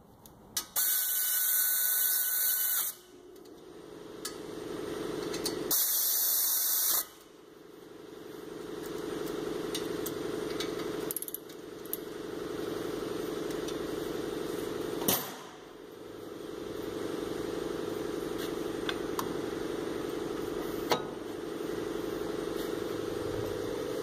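Air ratchet running in two short bursts with a loud hiss, tightening the brake caliper bolts, followed by a steady mechanical hum with a couple of sharp clicks.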